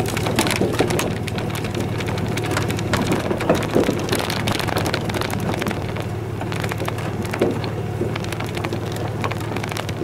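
Inside a pickup truck's cab rolling slowly over a dirt yard: a steady low engine hum under many irregular clicks and knocks.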